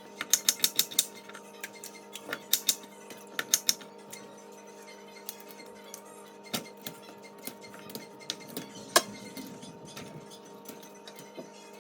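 Light clicks and clinks of kitchen utensils: a quick run of taps at the start, two shorter runs a couple of seconds later, then scattered single knocks, one louder near the end. A steady hum runs underneath.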